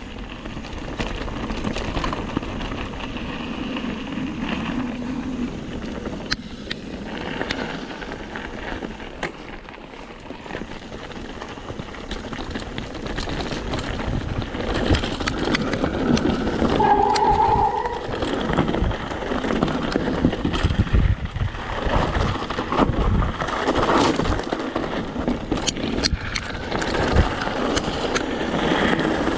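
Mountain bike riding down a rough, rocky trail: tyres rolling over stones and dirt, with rattles and knocks from the bike over the bumps. It gets louder in the second half.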